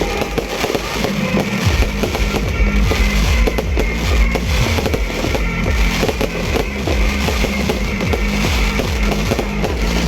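New Year fireworks going off in a dense, rapid string of bangs and crackles, with music playing.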